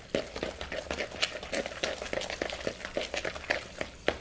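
Guacamole being stirred and mashed in a mixing bowl: an irregular run of wet squishes and clicks of the utensil against the bowl, several a second.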